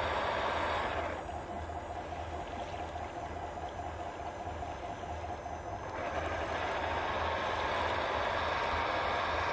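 Remote-control 8x8 military dump truck running while its tipper bed lifts: a steady mechanical sound that turns quieter and thinner from about a second in until about six seconds in, then comes back fuller.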